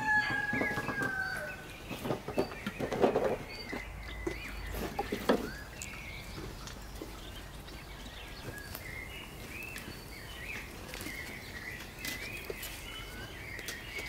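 Small birds chirping steadily, with a few sharp knocks and clunks around three and five seconds in from a wheelbarrow loaded with firewood being pushed and set down.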